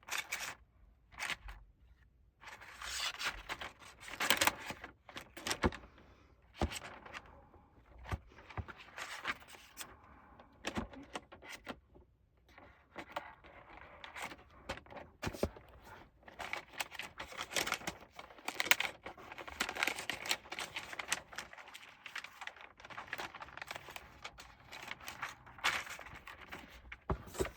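Unboxing handling: packaging and the tablet being moved about, with irregular scraping, rustling and tearing and a few sharp clicks and taps.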